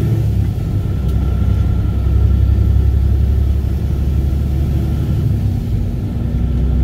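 Loaded tractor-trailer's diesel engine and road noise heard from inside the cab while driving at road speed: a steady low drone with faint steady tones above it.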